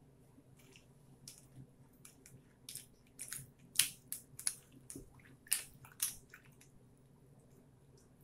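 Raw zucchini slices being pressed down into a glass canning jar with a plastic packing tool: a string of short clicks and crackles of slices and tool against the glass, thickest between about three and six seconds in.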